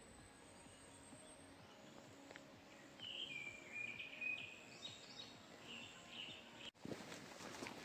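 A songbird calling in short chirping phrases from about three seconds in, over a faint steady background of insects. Near the end there is a short cut, and footsteps on a stony gravel road begin.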